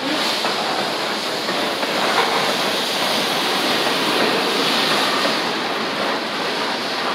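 Freight train boxcars rolling past close by: a steady, loud rumbling rush of steel wheels on rail, with no single knocks standing out.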